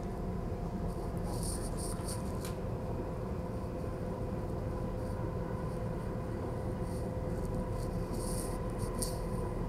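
Inside a DB Class 423 (ET423) S-Bahn electric multiple unit running along the line: a steady low rumble of wheels on track under several steady motor hum tones. Short scratchy hissing bursts come about a second and a half in and again near the end.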